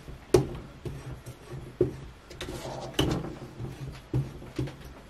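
Sharpening stone stroked along a hatchet's edge on an angle-set sharpening system, putting on a microbevel at 22.5 degrees. Short scraping strokes come roughly two a second, unevenly spaced, each starting with a click.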